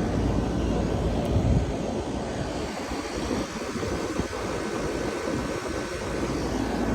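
Outdoor air conditioner condensing units running: a steady whooshing drone of fans and compressors, with a faint steady high whine. The low drone eases off somewhat in the middle.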